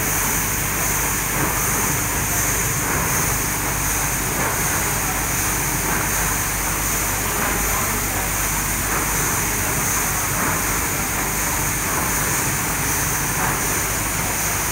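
Rice mill machinery running: a steady mechanical din with a low hum and a few faint high-pitched whines.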